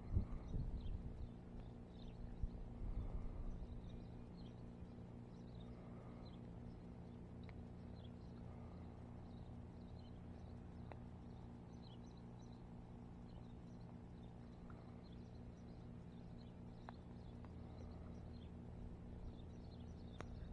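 Quiet outdoor ambience: faint chirps, likely small birds, repeat through a steady low hum, with a few handling bumps in the first couple of seconds.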